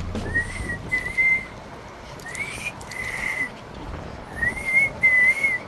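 Someone whistling a few short high notes in three pairs, over a background of wind rumbling on the microphone.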